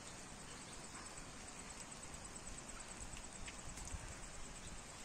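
Steady rain falling on a pond, an even hiss, with an insect chirping in a fast, even pulse of about five beats a second high above it.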